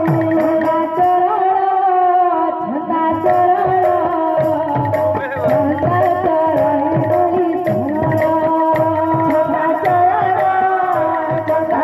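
Sambalpuri kirtan music. A dhol barrel drum beats a steady rhythm with low strokes that bend down in pitch, hand cymbals (jhanj) clash in time, and a held melody line runs over them.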